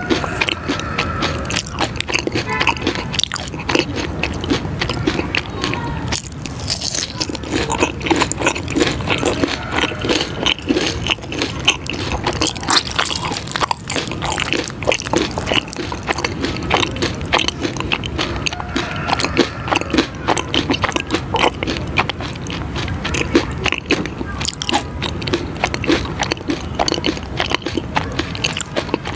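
Close-miked eating: steady biting and chewing with a dense run of quick crunches and crackles.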